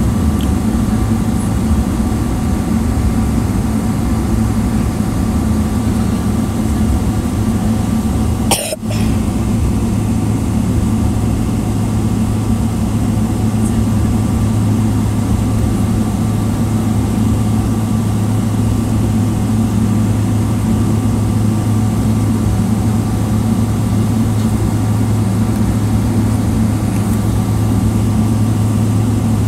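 Steady drone of a Boeing 777-300ER's GE90-115B jet engines at low power, heard inside the cabin while the airliner taxis, with a low hum and a few faint steady whines. One brief sharp sound comes about nine seconds in.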